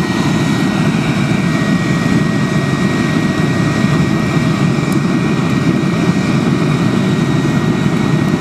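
Homemade waste-oil drip forge burning hard with its electric blower forcing air into the fire: a steady roar that sounds like a jet engine, with a thin steady high tone over it.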